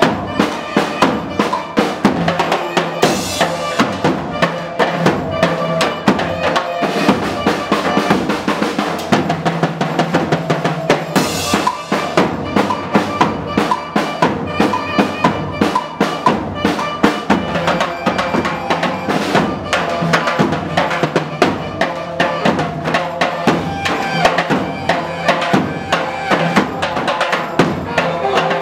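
Live zaffeh band playing: large double-headed tabl drums and a pair of timbales beat a driving, steady rhythm, with cymbal crashes about 3 s and 11 s in, under a saxophone melody.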